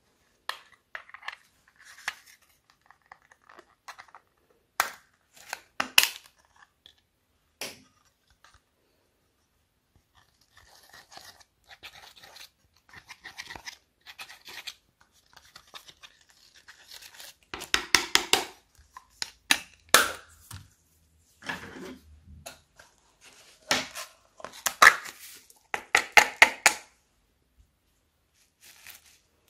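Irregular crisp crackles and clicks of crunchy slime packed with foam beads being pressed by fingers, with softer scratching of a thin tool scraping pressed eyeshadow out of a plastic makeup palette. The loudest crackles come in dense clusters in the second half.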